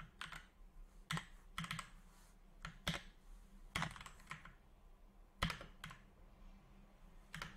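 Typing on a computer keyboard: faint, irregular keystrokes in short bursts with pauses between them, one sharper key strike a little past the middle.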